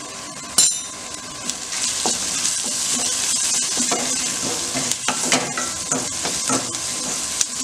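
Chopped onions, garlic, green chillies and curry leaves sizzling in oil in a stainless steel kadai. A wooden spatula stirs them, knocking and scraping against the pan. A sharp knock comes about half a second in.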